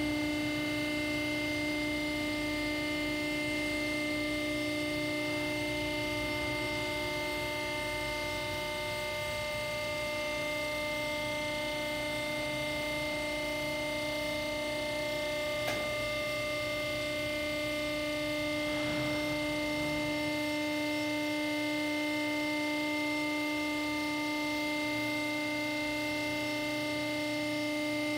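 Vertical cardboard baler's hydraulic power unit running: its 10 hp electric motor driving the hydraulic pump with a steady whining hum. There is one faint click about halfway through.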